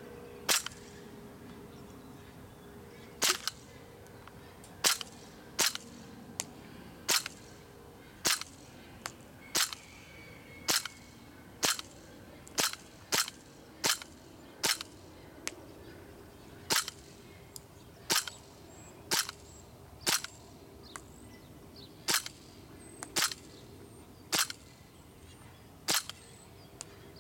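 KWC CO2 blowback Desert Eagle airsoft pistol firing single shots on a fresh CO2 cartridge, each a sharp crack of gas and the slide cycling. There are about two dozen shots, mostly about a second apart, with a longer pause after the first.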